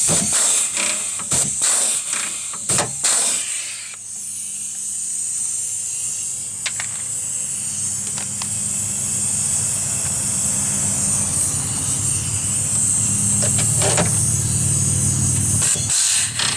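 Pneumatic (air-operated) rivet gun hissing air, with a run of sharp clicks in the first few seconds as it sets the handle's rivets. A steady low hum comes in at about four seconds and grows toward the end, with a few more single clicks.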